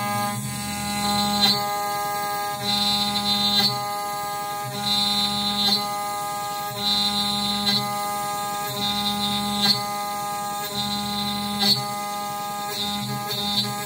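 Spindle of a DIY CNC router running steadily as the bit cuts a pocket in wood. The stepper-driven axes' tone switches about once a second as the cutter sweeps back and forth, with a short tick at most reversals.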